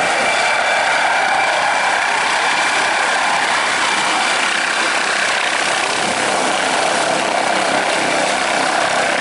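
Helicopter descending to a low hover just above the ground, its turbine whine and rotor noise steady and loud.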